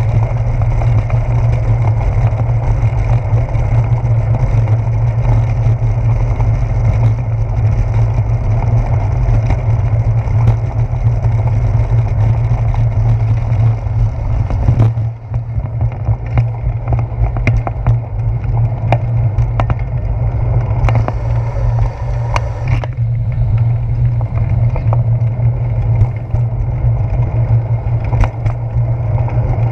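Steady low rumble and rattle of a bicycle rolling over wet brick pavement, picked up by a handlebar-mounted action camera, with wind noise on the microphone. From about halfway there are scattered sharp knocks as the bike goes over bumps.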